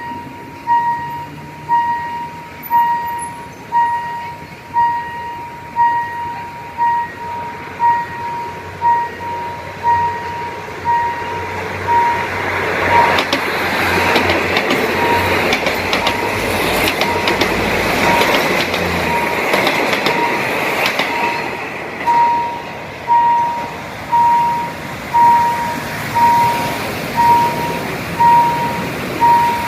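A level-crossing warning signal rings steadily and repeatedly while a train passes through the crossing. About twelve seconds in, the train's rumble and clacking wheels swell over the signal for roughly ten seconds, then fade, leaving the signal ringing alone.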